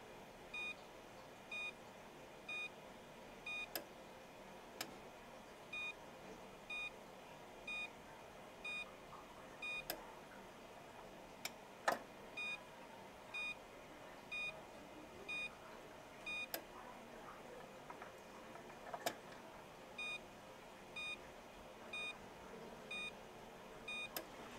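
Darkroom timer beeping once a second, each beep a short high tone, with a few sharp clicks scattered among the beeps.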